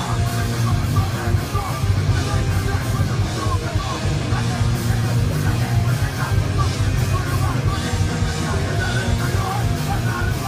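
Hardcore punk band playing live: distorted electric guitar, bass and drums under a shouted lead vocal.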